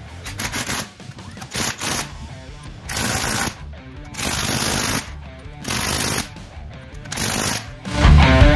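Cordless impact wrench hammering wheel lug nuts in about five short bursts, each under a second, running them down short of final torque. Rock music comes in loud near the end.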